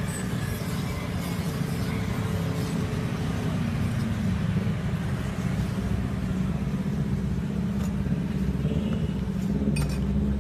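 Steady low rumble of busy street-stall surroundings, with a few light metal clinks of utensils about eight seconds in and again near the end.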